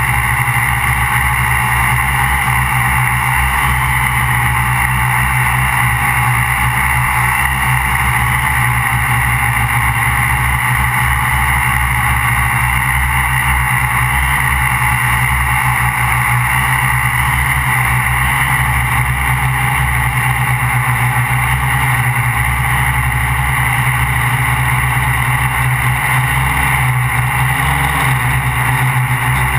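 Electric motors and propellers of a MikroKopter QuadroXL quadcopter, heard up close from its onboard GoPro: a steady, unbroken buzzing hum with a high whine.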